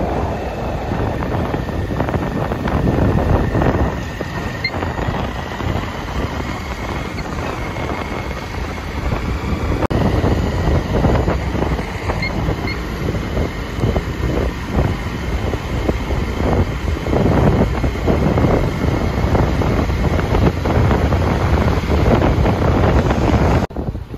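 Wind buffeting the microphone over the steady rumble of a moving vehicle, with a faint steady whine above it; the sound drops off sharply just before the end.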